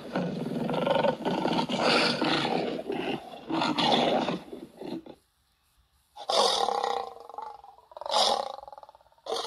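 Werewolf roars and growls: one long rough roar lasting about five seconds, a second of silence, then two shorter roars, with another starting at the very end.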